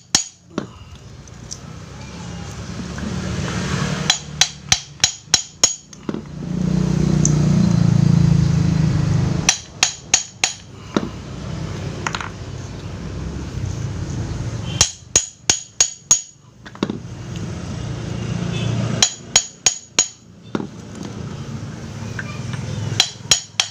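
Hammer tapping on the corner of a Sanyo water pump's pulley to work it loose, in quick runs of three to six strikes every few seconds. A louder low rumble comes up about seven seconds in.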